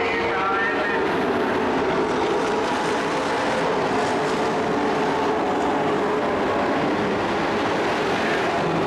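Engines of several dirt-track race trucks running hard together at racing speed: a steady, loud blend of engine noise, with a few engine notes rising and falling near the start.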